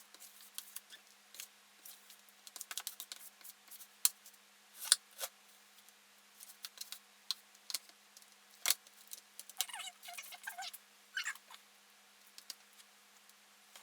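Sticky homemade cold porcelain clay being stirred and worked with a utensil in a container: scattered tacky clicks and short scrapes, with a couple of brief squeaks near the end. The clay is still very sticky.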